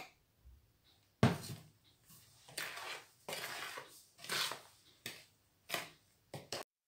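Metal spoon stirring and scraping flour-heavy cookie dough in a mixing bowl: a knock against the bowl just over a second in, then a run of short scraping strokes.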